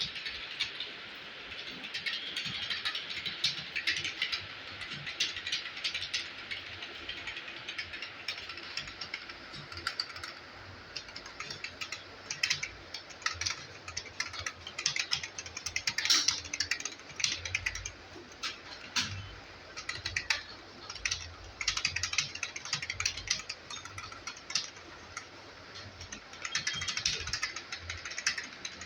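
Rapid keystrokes on a computer keyboard as numbers are typed at speed: a fast, uneven clatter of key clicks in quick runs with short pauses.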